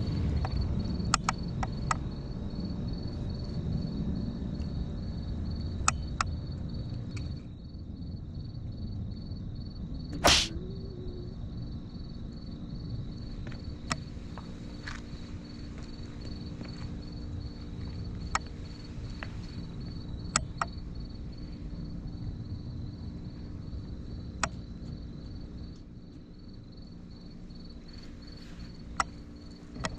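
A cricket trilling steadily in rapid, even pulses. There are scattered sharp clicks and one brief loud noise about ten seconds in.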